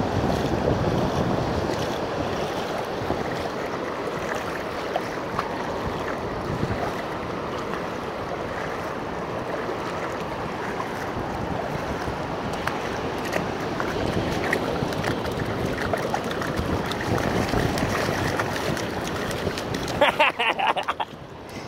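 Steady wash of shallow surf over sand, with wind on the microphone. A short voice is heard near the end.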